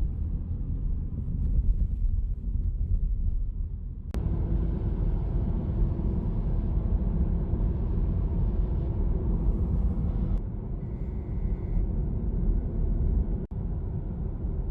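Steady low rumble of a car on the road. The sound changes abruptly about four seconds in and again about ten seconds in, with a brief dropout near the end.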